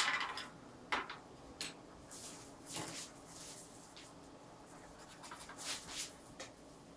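A sharp click at the start, then a few light knocks and soft rubbing and scraping as a plastic watercolour palette is picked up and moved over the table.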